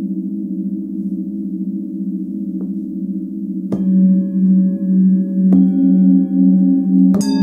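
Forged Tibetan singing bowls from a seven-note set ringing together, the lowest tone wavering with a slow beat. Another bowl is struck about halfway through, again near three quarters and once more just before the end, each strike adding fresh, higher ringing tones over the sustain.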